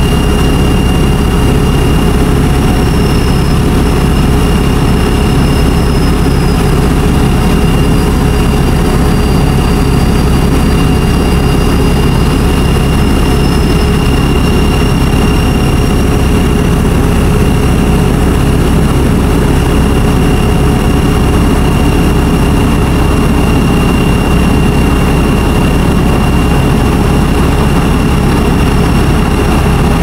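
A heavy engine running steadily at constant speed, with a steady high-pitched whine over its low rumble.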